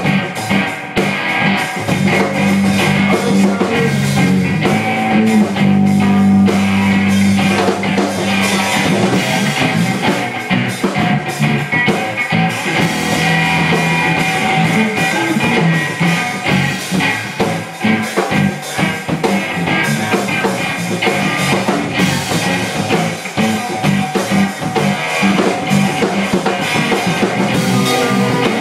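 Live rock band playing: electric guitar, electric bass and a drum kit.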